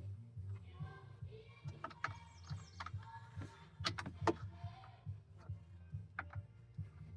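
Scattered sharp clicks and taps of hand work on door hardware, the loudest a pair about four seconds in, over faint background music and a steady low hum.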